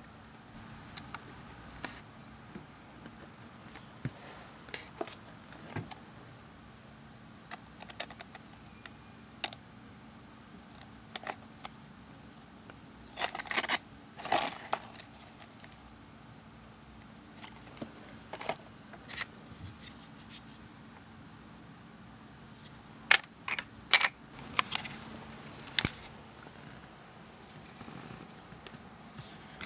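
Handling noise from a camera and a cardboard lens box: scattered clicks and taps, a denser patch of box handling about 13 seconds in, and a few sharp clicks about 23 seconds in, over a faint steady hum.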